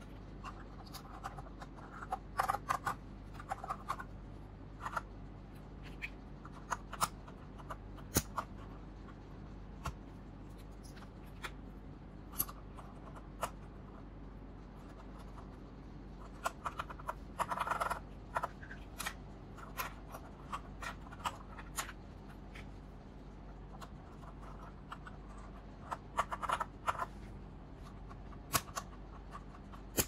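Plastic keycaps being pressed onto the switch stems of an Ajazz K870T mechanical keyboard: scattered sharp clicks and snaps, coming in short clusters.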